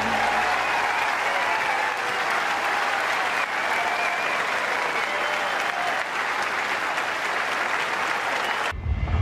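Large audience applauding, with the last notes of the band dying away in the first second. The applause cuts off suddenly near the end.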